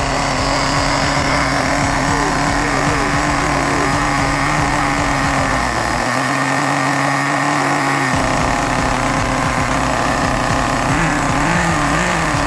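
Small nitro (glow-fuel) engine of an HSP RC buggy idling steadily at a high, even pitch. Near the end its speed wavers up and down, with the carburettor mixture still being tuned.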